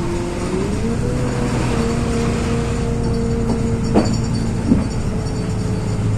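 LiAZ 6213.22 articulated bus under way, heard from inside: a steady drivetrain hum with a whine that steps up in pitch about half a second in and then holds, and two short knocks a little after the middle.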